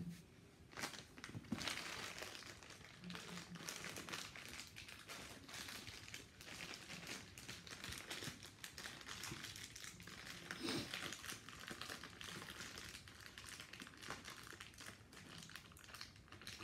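Faint, continuous crinkling and small crackles of plastic packaging being handled, as if a model part is being unwrapped from its bag.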